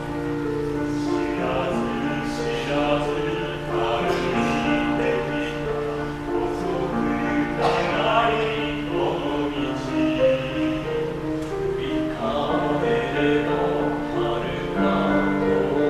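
Male vocal ensemble singing a slow Japanese kayōkyoku ballad in close harmony, with sustained, wavering notes, accompanied by piano and violin.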